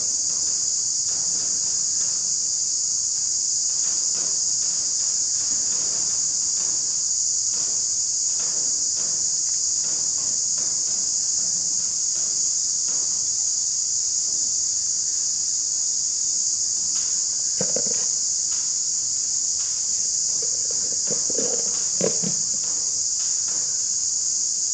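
Steady high-pitched chorus of insects, the loudest sound throughout. Faint scattered taps and clinks of hand work on the engine's aluminium timing cover sit under it, with a few louder knocks about 18 and 22 seconds in.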